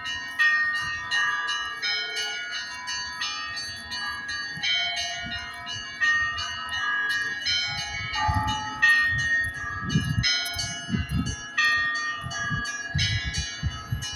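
Russian church bells ringing: several bells of different pitches struck in quick succession, a few strikes a second, each note ringing on into the next. Low rumbling thuds come in under the bells in the second half.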